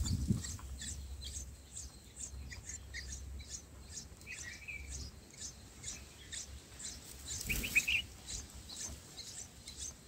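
Red-whiskered bulbul nestlings begging with a rapid run of short, high-pitched cheeps, about three or four a second, with a few lower chirps mixed in. Near the end there is a brief flutter as the adult bulbul flies off the nest.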